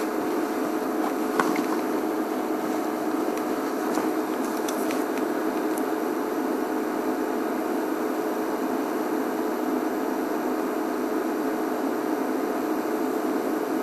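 A steady mechanical hum with hiss, unchanging throughout, with a few very faint ticks.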